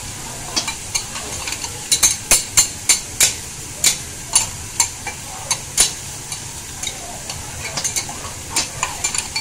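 Metal spatulas clacking and scraping on a flat-top griddle, sharp clinks coming quick and irregular from about two seconds in, over the steady sizzle of scallops and octopus frying in oil.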